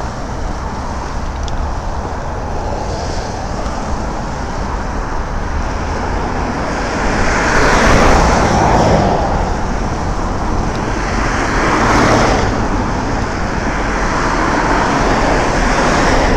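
Road traffic on a street beside the sidewalk: steady tyre and engine noise, with two cars passing louder, one about halfway through and another about three quarters of the way through.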